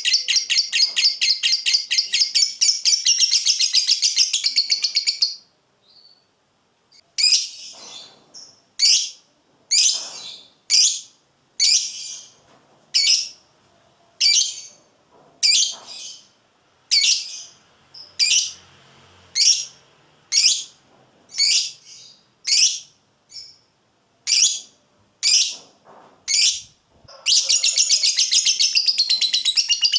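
Lovebird ngekek: a long, rapid chattering trill that breaks off about five seconds in. After a short pause come single sharp chirps, a little more than one a second, and the rapid chatter starts again near the end.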